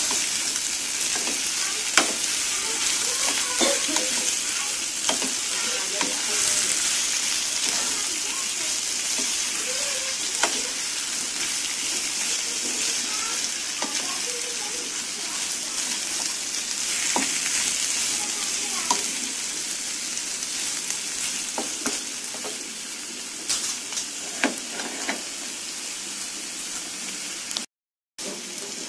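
Sliced bamboo shoots sizzling as they are stir-fried in a frying pan, with a wooden spatula scraping and clicking against the pan now and then. The sizzle slowly fades, and the sound cuts out for a moment near the end.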